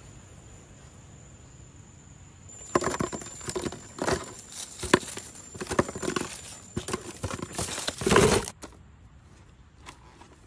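Clear plastic crinkling and clicking as plastic-cupped jelly eyeball candies are handled and packed into a clear plastic container: a dense run of rustles and knocks that starts a few seconds in and stops abruptly about eight seconds in, with a few faint clicks near the end.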